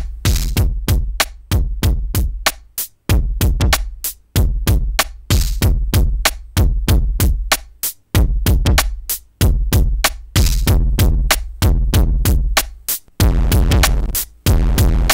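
Electronic drum-machine beat run through the Mutant Hot Glue Eurorack module's analog distortion and compressor: a fast, steady pattern of sharp bright hits over a heavy low kick.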